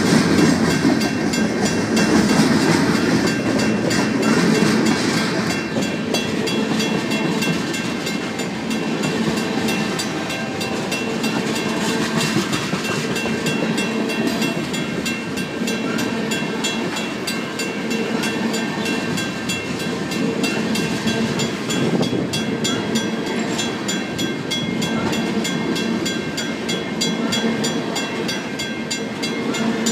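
Freight cars of a BNSF local rolling past at a grade crossing: steady rumble and clatter of steel wheels on the rails, heaviest in the first few seconds, with the crossing signal's WCH mechanical bell ringing in a rapid, even rhythm over it.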